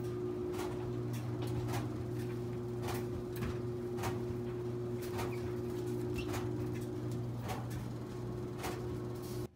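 Steady low hum of laundry-room machines, with irregular sharp clicks and taps from things being handled. The sound cuts off abruptly near the end.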